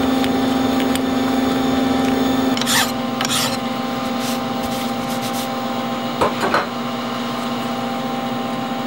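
Steel tool post handled and wiped with a cloth: short rubbing and scraping noises about three seconds in and again about six and a half seconds in, over a steady hum.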